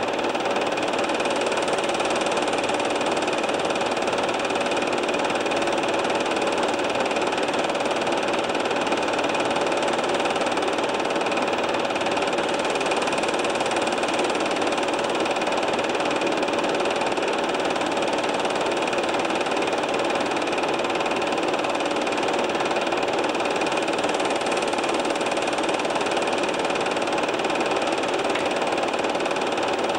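Film projector running under silent old home-movie footage: a steady mechanical whir and clatter with a constant hum.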